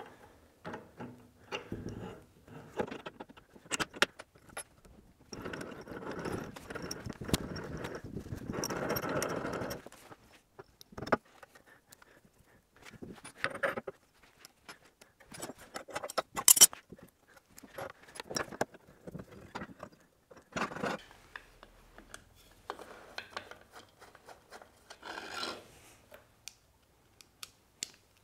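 Intermittent metallic clinks, knocks and scrapes as the parts of a Record Power DML320 wood lathe and the spanners and Allen keys used on them are handled and fitted together. A few seconds of steadier scraping come about a third of the way in, and one sharp, loud click a little past the middle.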